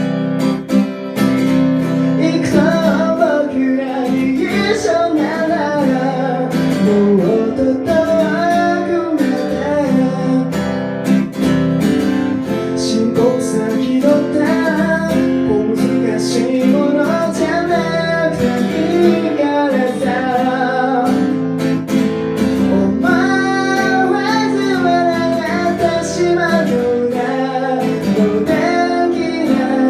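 A song accompanied by strummed acoustic guitar, with a melody line running over the chords.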